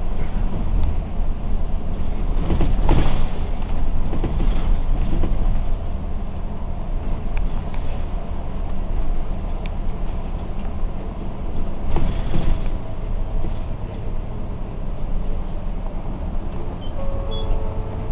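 Inside a moving city bus: the diesel engine runs steadily under way, with louder rattles and bumps from the cabin about three seconds in and again about twelve seconds in.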